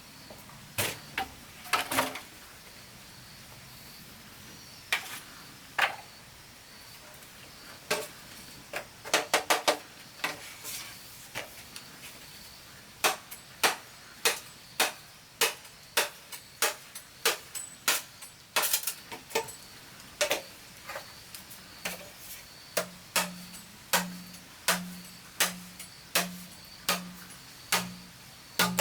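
Repeated sharp knocks of a tool striking wood or bamboo: scattered at first, then a steady rhythm of about one and a half strikes a second from about halfway through.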